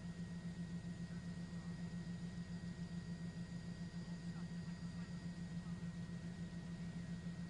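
A steady low mechanical hum with a slight rapid flutter and no changes.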